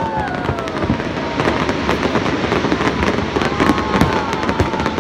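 Aerial fireworks bursting overhead: a dense, continuous run of sharp bangs and cracks in quick succession.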